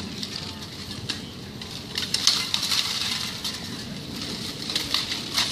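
Steel clinking and clanking of two fighters in full plate armour exchanging blows: a run of sharp metallic strikes and rattles, busiest about two seconds in and again near the end.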